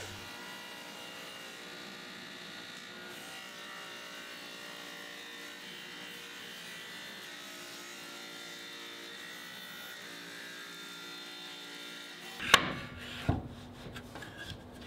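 Table saw with a dado stack running steadily as a redwood board is fed through it, cutting a rabbet on a first, half-depth pass. About twelve seconds in this gives way to a sharp knock and some handling noises.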